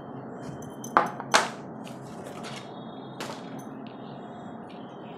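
Handling knocks and ticks as a Treo borosilicate glass bowl is unpacked, its cardboard insert pulled out and a plastic lid handled on the table. Two sharp knocks close together about a second in, a softer one around three seconds in, and a few light ticks.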